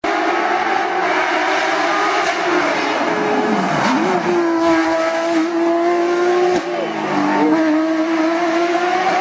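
Porsche 911 GT3 RS rally car's flat-six engine running at high revs under full throttle. The pitch holds high, drops sharply and climbs back about four seconds in as the driver lifts and goes back on the power, then dips briefly twice more near the end.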